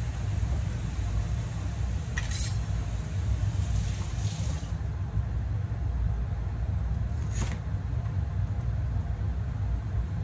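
A steady low hum runs through a kitchen. Over it come a few brief handling noises from work with vegetables and utensils, about two, four and seven seconds in.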